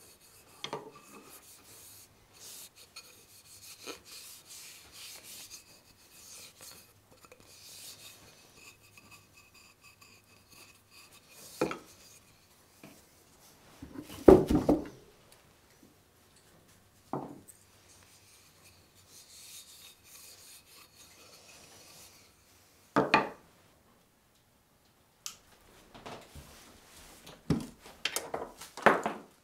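A hand rubbing boiled linseed oil into a bare hickory hammer handle, a soft uneven rubbing. Several knocks break it as the hammer is handled and set down on the wooden workbench, and a cluster of knocks about halfway through is the loudest.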